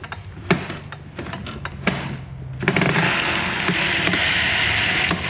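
Ryobi table saw's failing motor humming with a few sharp clicks, then spinning up about two and a half seconds in to a loud, steady whir. The motor is bad, with brushes the owner thinks are wearing out.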